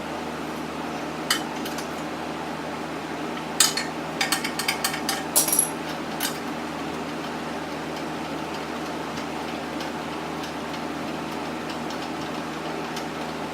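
Metal clinks and knocks of tools and bolts being handled while a truck bumper is bolted on: one knock, then a quick cluster of sharp clinks about four seconds in, and a last one shortly after, over a steady background hum.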